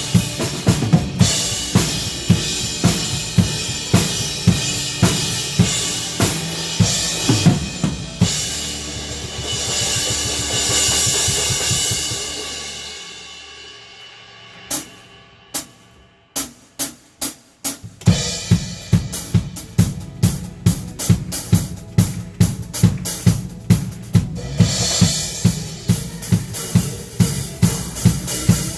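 Drum kit played in a steady worship-song groove with kick, snare and cymbals. About eight seconds in, a cymbal wash swells and fades out, leaving a short run of sharp, evenly spaced single hits. The full beat comes back in about eighteen seconds in.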